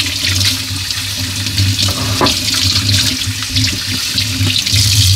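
Kitchen tap running, water splashing over a salted bream as it is rinsed of its salt in the sink, with a low hum underneath.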